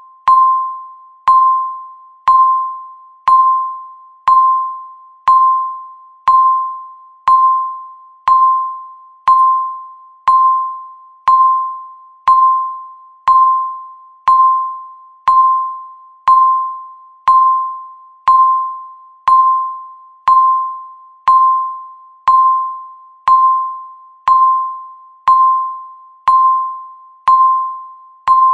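Countdown timer beeping once a second: a short ding that starts sharply and fades away, repeated at an even one-second pace, each beep marking a second ticking off.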